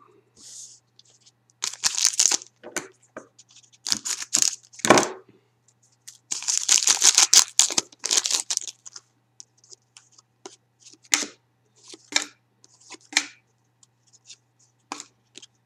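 Foil wrapper of a Panini Titanium hockey card pack being torn open and crinkled, in several bursts with the longest about six seconds in. After that come short rustles and ticks of the cards being slid through the hands.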